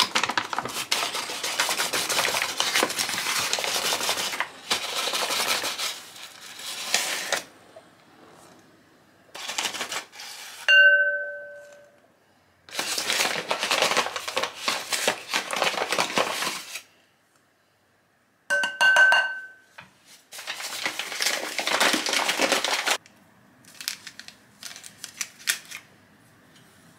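Flour poured from its bag into a glass mixing bowl, the bag rustling and the flour hissing in three long pours. Between the pours come two short ringing clinks.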